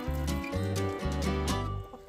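Background music with a steady bass beat, dropping away near the end.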